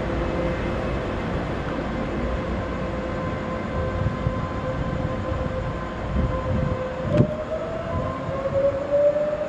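Daewoo EMU500 electric multiple unit pulling away, its traction motors giving a steady whine that climbs in pitch from about seven seconds in as the train gathers speed. A sharp knock comes just as the pitch starts to rise, with a few duller thuds from the wheels on the track.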